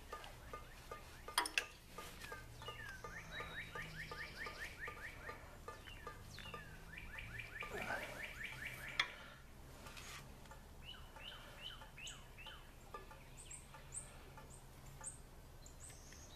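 Birds singing: two fast trills of repeated chirps, then separate chirps and thin high chirps near the end. A few faint sharp clicks come from a metal tool being worked in the tractor's oil drain cock.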